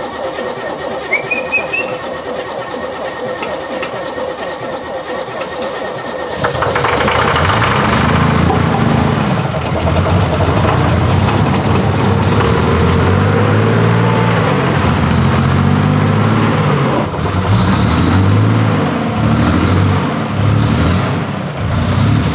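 The starter cranks an explosion-proof tugger's diesel engine for about six seconds, then the engine catches and runs, loud and uneven, its speed surging up and down.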